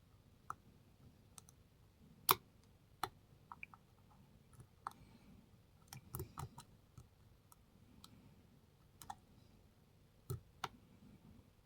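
Scattered, irregular small clicks of a lock pick working the spring-loaded pins of a pin-tumbler lock under tension; the loudest click comes a little over two seconds in.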